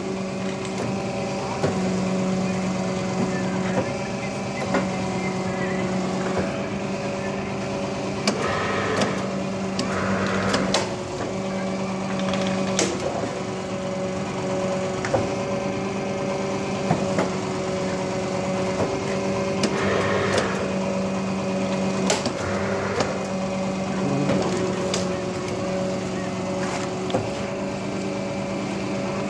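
Paper plate making machine running: a steady electric motor hum with sharp clicks every few seconds as the dies press the plates.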